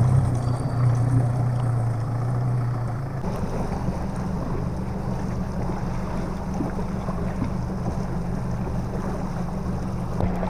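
Yamaha 185 hp outboard motor idling steadily just after starting. About three seconds in it gives way to a steadier, slightly higher motor hum with water and wind noise as the boat runs across open water.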